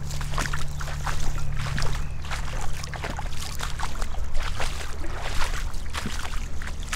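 Gumboot footsteps splashing and sloshing through shallow floodwater on a wet gravel road, two people's steps falling irregularly, over a low steady rumble.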